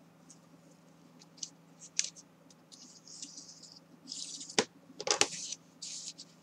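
A bone folder rubbed along kraft cardboard to press glued strips flat: short scraping strokes, with a couple of sharp taps about four and five seconds in.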